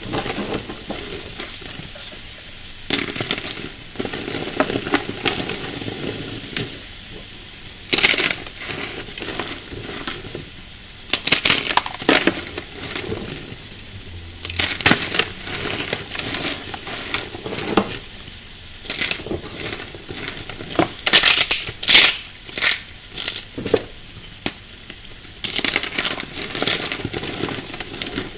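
Hands squeezing and crumbling soft, powdery chalk blocks: a steady crackling hiss of breaking powder, with louder crunches at irregular moments.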